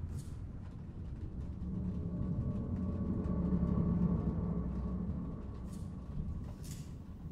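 Low, ominous rumbling drone of a horror film's score, swelling to its loudest around the middle and then fading, with a faint high tone held above it.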